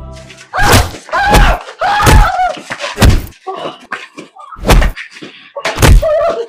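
Heavy slaps and thumps of a beating, about six blows, with voices crying out between them.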